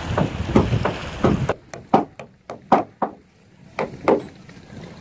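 Hammer striking metal staples into the plank seams of a wooden boat hull: sharp, irregular taps, some in quick runs and some spaced apart. A steady rushing noise underneath cuts off about a second and a half in.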